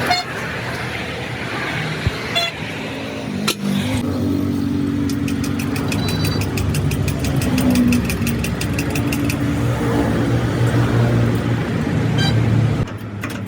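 Road traffic, with a vehicle engine running close by from about four seconds in and cutting off near the end.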